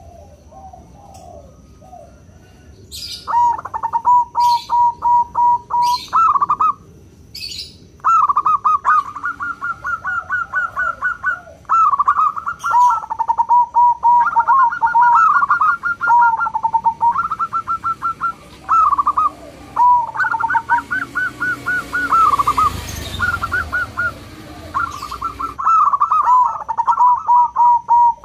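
Zebra dove (perkutut) singing: phrase after phrase of rapid staccato cooing notes, each phrase ending on a lower held note, with short pauses between phrases.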